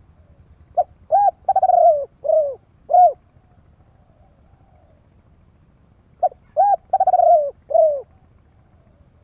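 Spotted dove cooing: two phrases of about five coos each, one starting about a second in and another about six seconds in.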